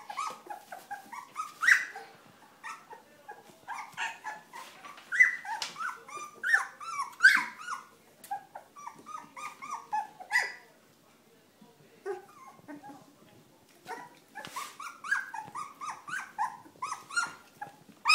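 Young Sprocker spaniel puppies crying: many short, high-pitched squeaks one after another, with a lull of a few seconds past the middle before they pick up again.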